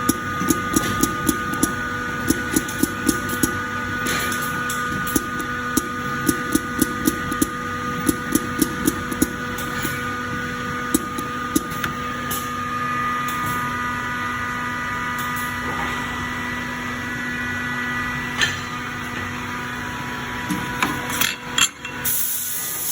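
Automatic liquid-silicone dispensing machine at work: a steady whine from its motors under rapid clicking, about three clicks a second for the first ten seconds and sparser after. A short hiss comes near the end.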